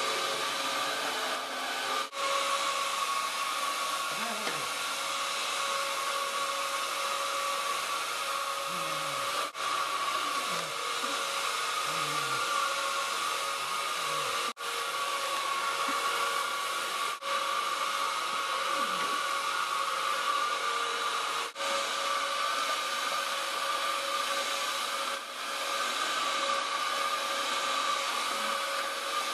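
Dyson upright vacuum cleaner running with a steady motor whine, cutting out for a split second several times.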